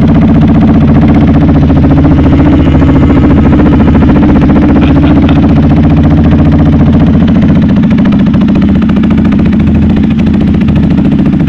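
Titan 250 Fi motorcycle engine idling steadily through its stock exhaust, without the exhaust whistle fitted.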